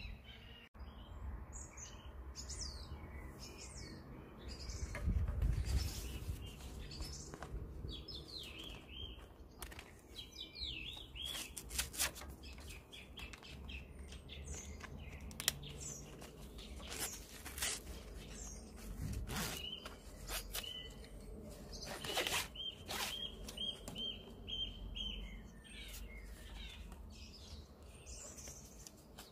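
Small birds chirping and singing, with a quick run of evenly repeated notes about three-quarters of the way through. Scattered clicks and rustles of nylon webbing being handled and threaded through a plastic buckle come in between.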